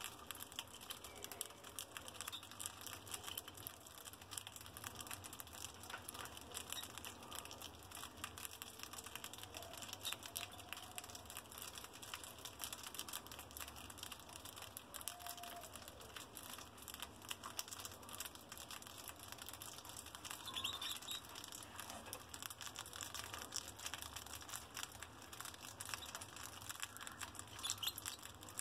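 A group of mice gnawing and crunching dry food pellets: a faint, steady, fast patter of tiny crunches and clicks.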